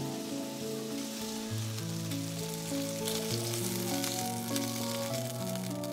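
Hot fat and beef juices sizzling steadily in a frying pan just used to sear beef strips, with gentle background music underneath.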